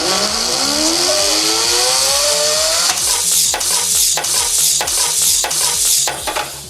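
Loud crackling and rustling, like paper being crumpled and torn. A rising whistling tone climbs over the first three seconds, then the crackles come about twice a second until shortly before the end. A steady music beat runs underneath.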